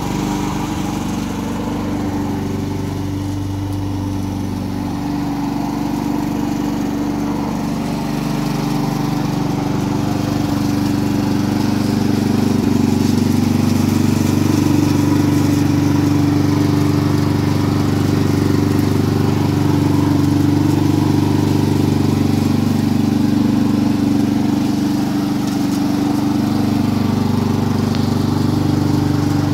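Honda IZY walk-behind lawn mower's single-cylinder four-stroke engine running steadily, getting somewhat louder about ten seconds in.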